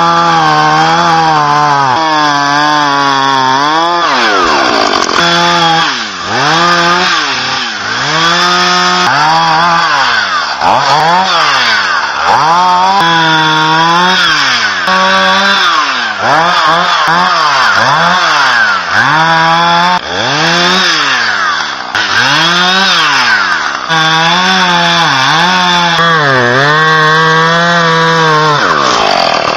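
Chainsaw cutting wood, starting abruptly and then revving up and easing off over and over, its pitch rising and falling every second or two as the chain takes and leaves the cut.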